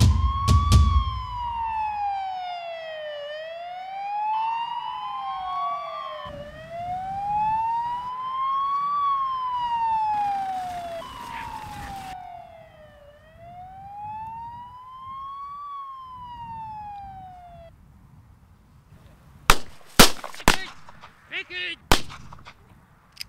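Siren wailing, rising and falling in slow sweeps about every three seconds, then cutting off. About two seconds later come several sharp pistol shots within about two and a half seconds.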